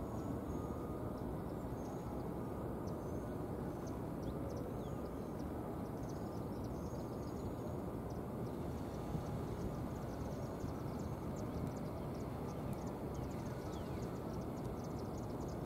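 Steady low outdoor background rumble with no train passing close, with faint high-pitched chirps that come more often near the end.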